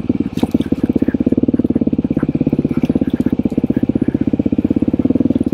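Off-road motorcycle engine running at low, steady revs: a fast, even putter of firing pulses with no rise or fall.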